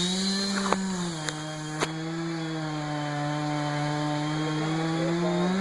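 Chainsaw running under load as it cuts through a tree trunk; its pitch drops about a second in as it bogs into the cut, then creeps back up near the end. Three sharp clicks sound in the first two seconds.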